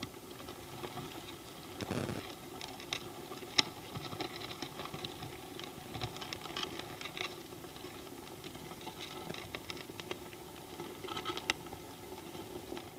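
Field recording of a Labidus army ant swarm moving over leaf litter and wood: a steady hiss with a low hum beneath it and a dense patter of tiny clicks and rustles. The patter thickens about two seconds in and again near the end.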